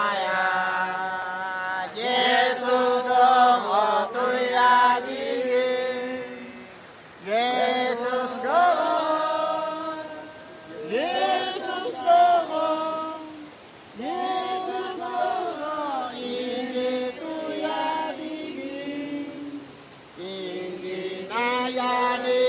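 Soundtrack music: a chanting voice sings long held phrases with sliding, wavering pitch, each phrase a few seconds long with short breaks between.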